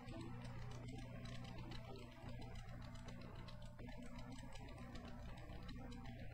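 Digital piano played softly, with low notes and chords held steady.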